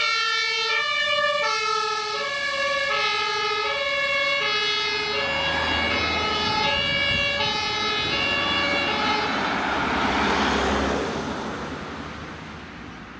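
HLF 20 fire engine passing with its two-tone siren stepping between a high and a low pitch about every three-quarters of a second. The siren fades out about nine seconds in while the truck's engine and tyre noise swells, then dies away near the end.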